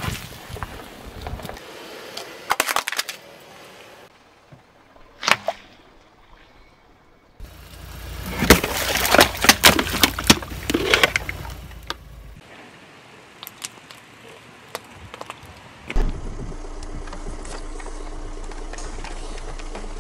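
A car tyre crushing objects in a run of short clips. First a bundle of batteries crackles and clatters apart under the tyre, a single sharp crack follows a few seconds later, and about halfway a wet, glittery sponge squelches and sprays water under the wheel, with dense crackling for several seconds. Near the end only a steady low hum is left.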